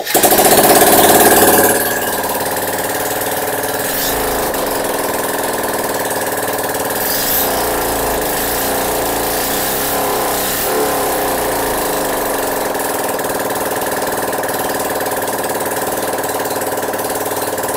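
Bajaj Pulsar 150's single-cylinder engine, freshly rebuilt, starting and revving for about two seconds, then idling steadily. It runs without its silencer and with the tappet cover off while oil flow to the tappets is checked.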